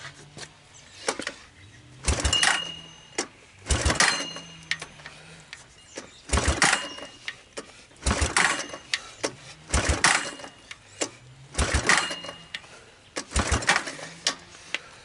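Recoil pull-starter on a 1986 Honda TRX200SX being yanked about seven times, one pull every second and a half to two seconds. It cranks the single-cylinder engine over with the spark plug out for a dry compression test, and the engine shows compression of a little over 90 psi.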